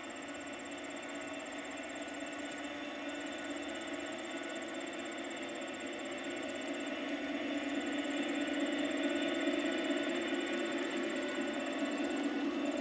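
Aristocraft GP40 model diesel locomotives running on garden track, their QSI sound decoders playing a diesel engine sound over the running gear, getting louder as the train draws near about seven seconds in. An insect trills high above in repeated runs of a couple of seconds.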